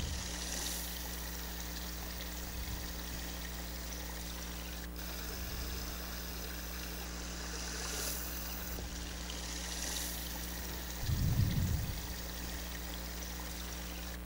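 Water running steadily in a small roadside ditch, with a brief low rumble about eleven seconds in.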